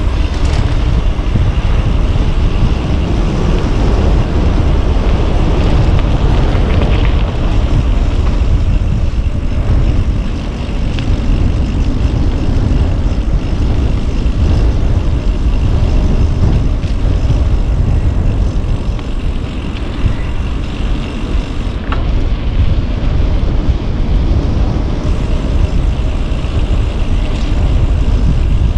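Wind rushing over the microphone on a fast downhill bicycle ride: a loud, steady low rumble with a rushing hiss.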